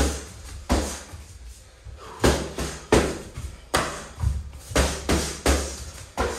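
Punches and a round kick landing on a training partner's boxing gloves and guard: about ten sharp smacking thumps in quick combinations, some two or three in a row.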